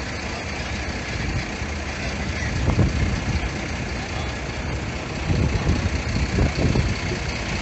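Fire truck's diesel engine idling, a steady low rumble under street noise, with brief louder surges about three seconds in and again between five and seven seconds in.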